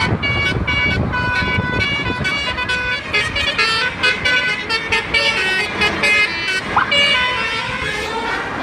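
Basuri multi-tone "telolet" bus horn playing a quick tune of short stepped notes, over the low rumble of a bus engine.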